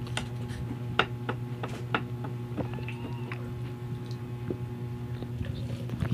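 Light clicks and scrapes of a metal spoon spreading peanut butter on bread on a plate and against the jar, over a steady low hum.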